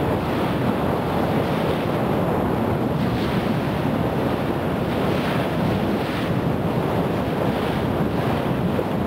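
Strong wind on the microphone over choppy sea waves, a steady rush with occasional louder washes of water.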